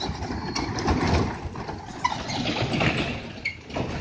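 A Hino three-axle box truck's diesel engine and tyres passing close while it takes a sharp bend: an uneven rumble, loudest about a second in, with a few short high squeaks.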